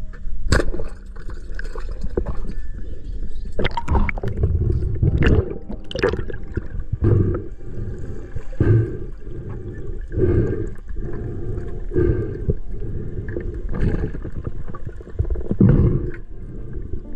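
Muffled gurgling and sloshing of water around a camera held underwater, in pulses about every second and a half as the diver swims.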